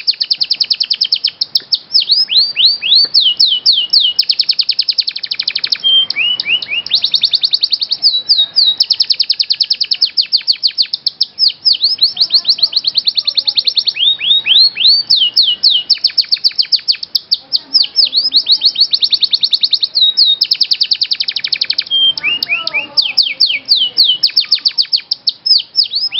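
Domestic canary singing a continuous high-pitched song of fast rolling trills and rapidly repeated downward-sweeping notes, with a few short steady whistled notes between phrases.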